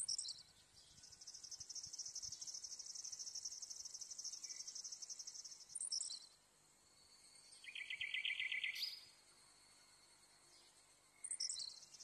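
High-pitched insect trilling, typical of pondside crickets, in long bouts of about five seconds. Each bout opens with a short falling sweep. Around eight seconds in, a lower, shorter pulsed call ends on a rising note.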